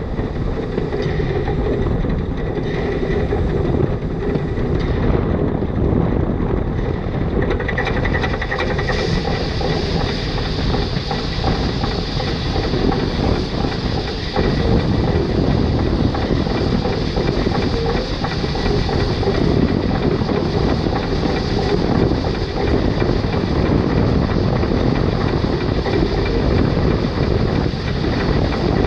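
Narrow-gauge steam locomotive under way, a steady running noise of the engine and its wheels on the rails.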